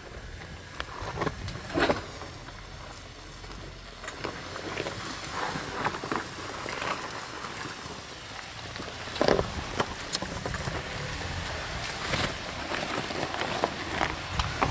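Haval H9 SUV crawling slowly over a rocky trail: tyres crunching and knocking on loose stones over a low engine rumble, with scattered clicks and a couple of louder knocks about two and nine seconds in.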